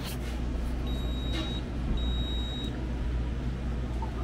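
Two high electronic beeps from a store checkout: a shorter one about a second in and a longer one about two seconds in, over a low steady hum.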